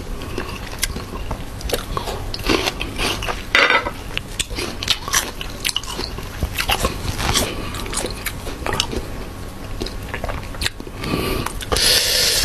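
Close-miked crunching and chewing of crisp raw green mango, a string of sharp wet crunches, with a longer, louder noisy crunch near the end.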